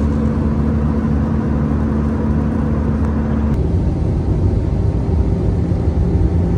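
Cabin noise of an Airbus A320-214 airliner in cruise: the steady rush of airflow and the hum of its CFM56 turbofan engines. About halfway through, the sound shifts abruptly: one hum stops and the hiss grows duller.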